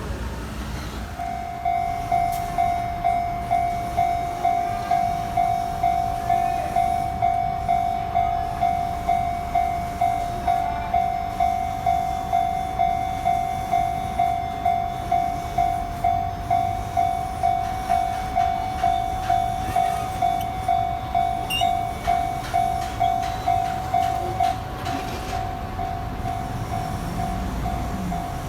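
Japanese level crossing warning bell ringing over and over, about one and a half strikes a second, starting about a second in, over the low rumble of a passing electric train. Near the end a low rising whine comes from the train.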